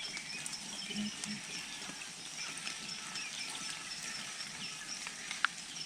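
Chorus of wild animal calls: a steady, high, pulsing call with quieter rising calls beneath it, and a single sharp click about five and a half seconds in.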